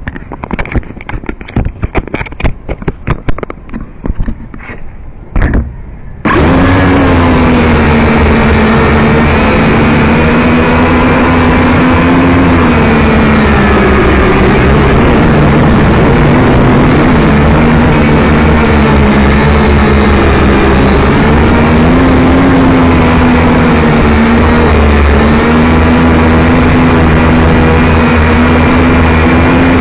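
Knocks and clicks of handling, then about six seconds in the four small motors and propellers of a Syma X5C quadcopter start abruptly and run with a loud, steady buzz whose pitch wavers slightly in flight, picked up by the drone's own onboard camera.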